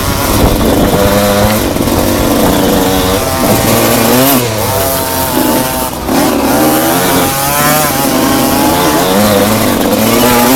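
Enduro motorcycle engine being ridden hard, its pitch climbing and dropping several times as the throttle is opened and closed through the stage.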